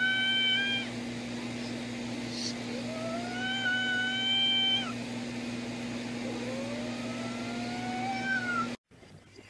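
Cat yowling: three long drawn-out calls of about two seconds each, the last two rising slowly in pitch, over a steady low hum. The sound cuts off shortly before the end.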